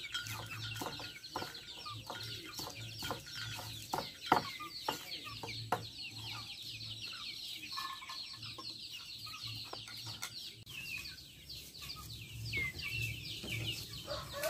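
A cleaver chopping leaves on a wooden chopping board, sharp knocks about two a second for the first six seconds, then the chopped leaves being moved into a metal pot. Constant high, falling chirps of birds run throughout.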